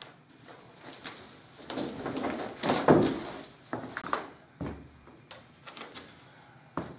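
Push broom sweeping a wooden parquet floor: bristles swishing in strokes, loudest about three seconds in, followed by a few short knocks.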